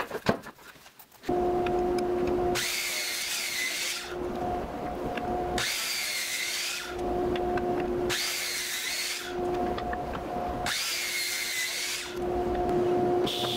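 DeWalt compound miter saw running, with a steady motor hum. From about a second in, its blade cuts through dense ipe hardwood four times, each cut about a second and a half of harsher, higher noise over the hum.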